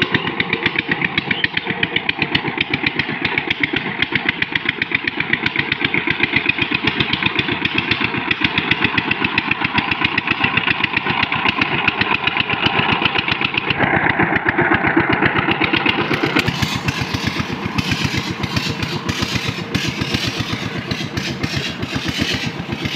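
Single-cylinder diesel engine of a two-wheel power tiller running steadily with a fast, even chugging as the machine churns through a flooded, muddy paddy.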